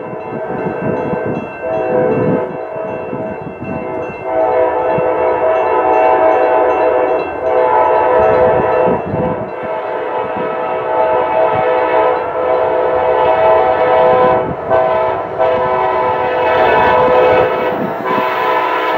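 Approaching diesel freight train's air horn sounding a series of long blasts, louder from about four seconds in, over the steady ringing of the grade-crossing warning bell.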